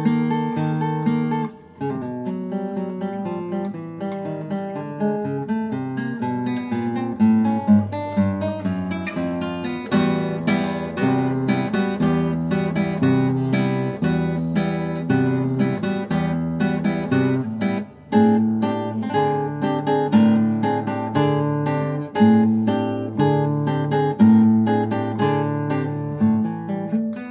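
Solo nylon-string classical guitar playing a continuous stream of plucked notes over a bass line. The sound cuts out briefly about two seconds in and again about eighteen seconds in, then the playing resumes.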